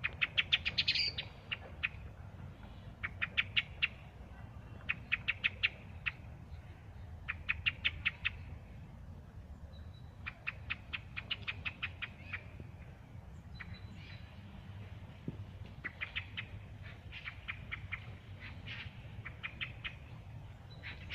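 Thrush giving bursts of rapid, harsh chattering notes, about ten a second, each burst lasting roughly a second and repeated every couple of seconds.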